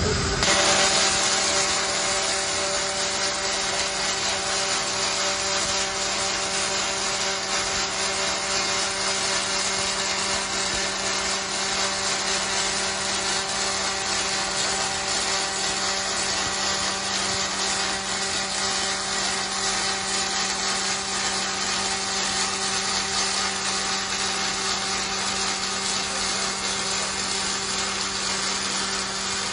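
ABB industrial welding robot arc welding: the arc strikes right at the start and gives a loud, steady hiss with a constant low electrical hum underneath, unbroken throughout the weld.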